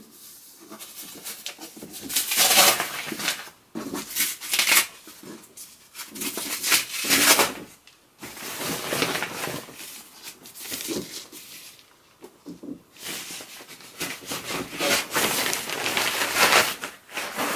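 Protective wrap and plastic film rustling and crinkling as they are handled and peeled off an iMac's screen, in a string of uneven bursts.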